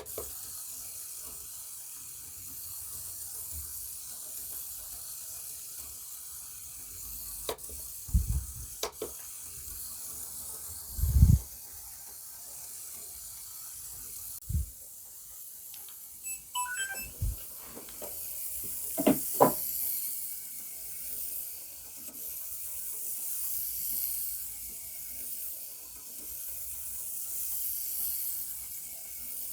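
Faint steady high hiss of a tiny T-gauge model train running on its track, swelling and fading slowly, with a handful of soft knocks and clicks scattered through it.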